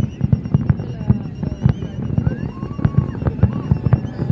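Aerial fireworks display: a rapid, continuous barrage of booming bursts and sharp bangs, several a second.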